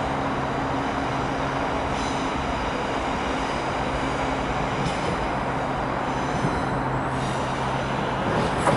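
Steady distant engine rumble with a low, even hum underneath.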